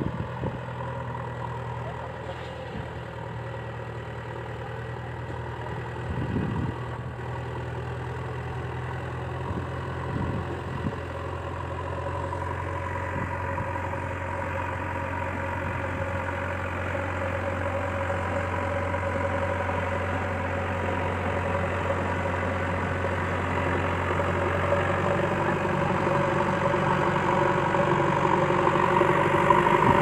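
A toy RC JCB backhoe loader's engine-idling sound plays steadily and grows slowly louder. There are a few light knocks in the first ten seconds.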